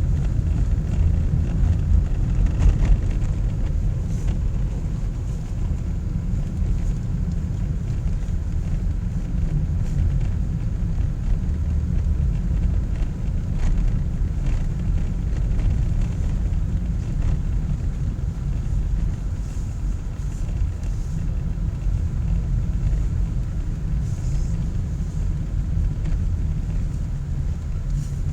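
Steady low rumble of a car's engine and tyres while driving on a winter road, with a few faint knocks.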